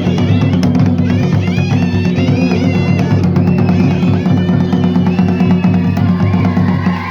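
Music for a Himachali Nati folk dance: busy, steady drumming under a high, winding melody line.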